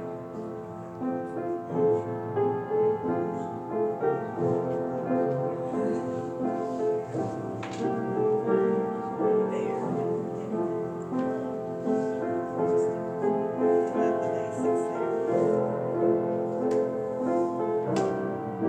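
Solo piano playing slow, reflective music, with held notes and chords changing unhurriedly.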